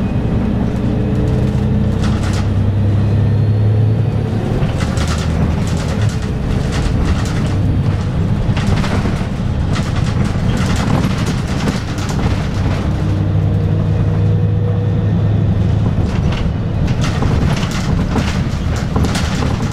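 Volvo B7R city bus driving at speed, heard from inside the cabin: a steady low diesel drone that swells twice and eases in between, over road rumble, with frequent short rattles and knocks from the body.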